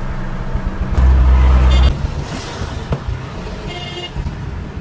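Truck engine and road noise running steadily, with a loud low rumble lasting about a second, starting about a second in. Near the end comes a short toot.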